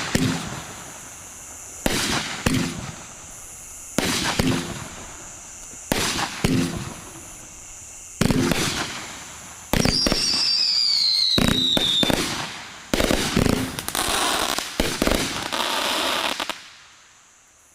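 500-gram aerial firework cake firing shot after shot, about every two seconds, each sharp report trailing off into crackling. A thin falling whistle lasting about two seconds comes around the middle. Near the end a rapid finale barrage runs, then stops abruptly about a second before the end.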